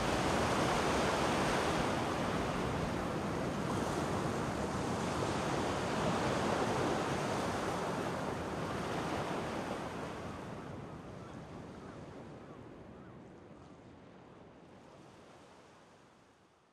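A steady rushing noise with slow swells in strength, fading out gradually over the last six or seven seconds.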